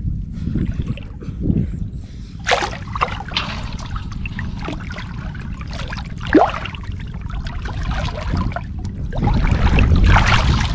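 Water splashing and sloshing as hands grope through shallow muddy water, over a steady low rumble. One sharp splash about six seconds in, and the splashing grows louder and busier near the end.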